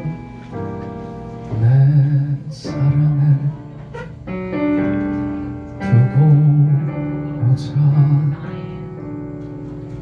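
A man singing a slow ballad live, in phrases of about a second, accompanied by sustained chords on a Yamaha CP stage piano.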